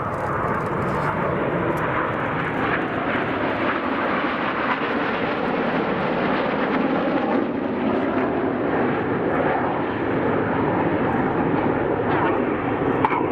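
Steady jet noise from a formation of BAE Hawk T1 aircraft, the Red Arrows' single-engine Adour turbofan trainers, flying their display.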